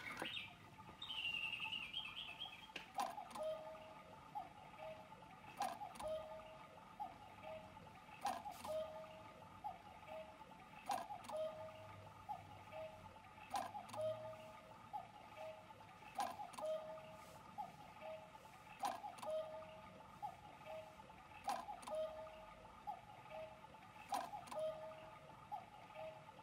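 CùCùRùKù battery quartz cuckoo clock striking: a sharp click with short cuckoo tones, repeating about every two and a half seconds.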